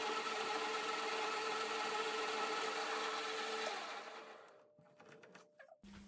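Metal lathe turning down a steel spark-plug socket with a carbide insert tool: a steady machining sound with a high whine. About three and a half seconds in the lathe is switched off and winds down to a stop, followed by a few faint clicks.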